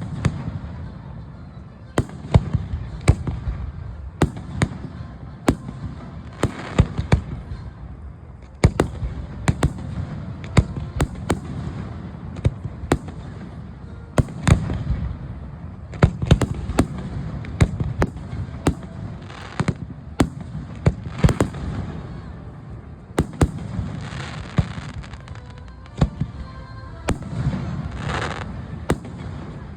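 Aerial fireworks display: a rapid, continuous barrage of shell bursts, sharp bangs several times a second over a low rumble, with stretches of crackling near the end.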